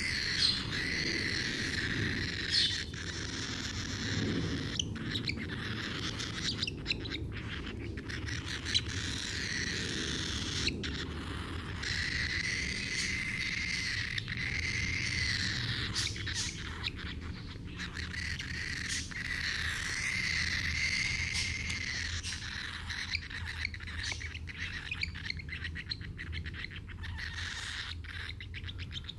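Cockatiel calling while being hand-fed grape: long drawn-out calls, each held for a few seconds, with short clicks and ticks in between.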